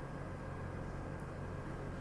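A steady low hum of room background noise, with a faint high tick about a second in.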